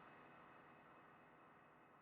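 Near silence: the faint tail of a sound effect slowly fading out.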